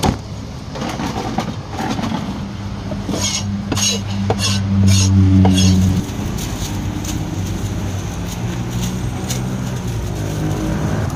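A vehicle engine idling close by as a steady low hum, loudest around five seconds in and dropping sharply at about six seconds. A string of short crisp noises sounds over it in the middle.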